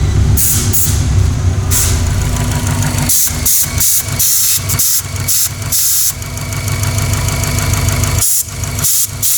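Turbocharged Subaru flat-four stroker engine idling steadily just after starting. It carries a knock that the owner puts down to the skirt of the fourth piston.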